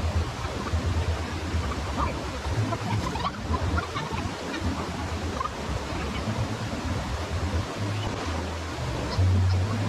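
Waterfall rushing: a steady hiss of falling water, with irregular low rumbling thuds underneath.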